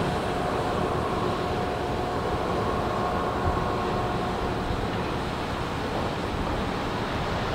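Ro-Ro passenger ferry's machinery running steadily as it comes alongside the quay, a low rumble with a faint whine that fades out about halfway through.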